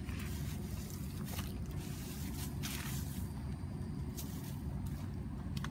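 Hands scraping and rustling dry leaves and dirt on the ground, several short scrapes, over a steady low rumble.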